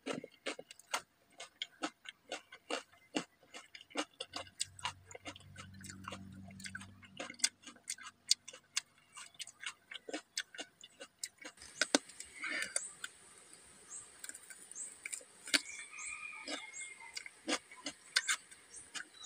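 Close-miked chewing of raw vegetables: a run of sharp wet mouth clicks and crunches, a few each second. A short low hum comes about four seconds in, and faint bird chirps come in the second half.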